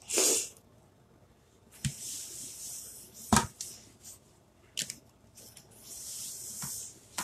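Microfiber towel rubbed by hand against a tabletop: soft scrubbing hiss in three stretches, with a single sharp knock about three and a half seconds in.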